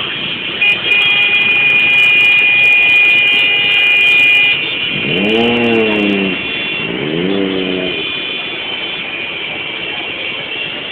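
Massed motorcycles and cars running in slow, packed street traffic. A steady high-pitched tone sounds for about the first four seconds, and two drawn-out calls that rise then fall in pitch come around the middle.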